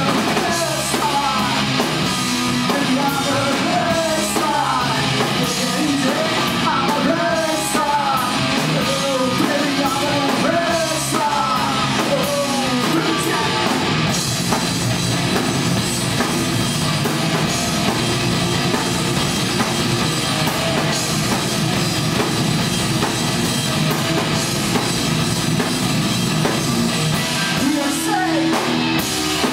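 Live rock band playing loud: distorted electric guitar, bass guitar and drum kit. A singer's voice carries the melody for about the first dozen seconds, then the band plays on without vocals.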